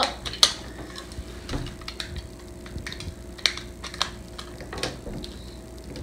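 Small plastic Best-Lock building bricks being handled, pressed together and set down on a table: irregular sharp clicks and light knocks, the loudest about half a second in.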